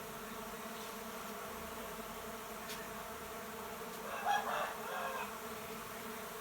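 Many uruçu nordestina stingless bees (Melipona scutellaris) buzzing as they fly out in numbers around the hive, a steady hum. About four seconds in a short, louder call cuts in for about a second.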